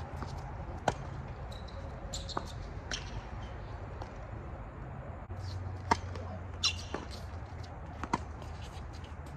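Tennis rally on a hard court: several sharp pops of racket strings hitting the ball and the ball bouncing, the loudest about a second in and about six seconds in, with short squeaks of shoes on the court. A steady low hum runs underneath.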